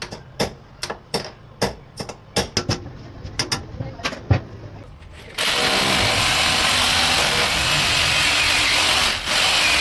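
A series of sharp knocks and clicks, then a power drill running steadily for about four seconds, dipping briefly and stopping near the end.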